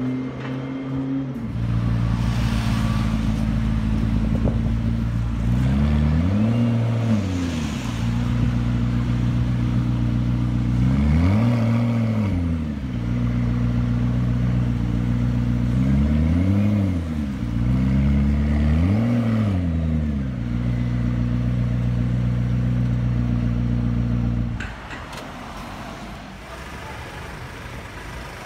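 McLaren P1's twin-turbo V8 idling with a steady note, blipped four times so that the revs rise and fall each time. The engine sound stops abruptly near the end.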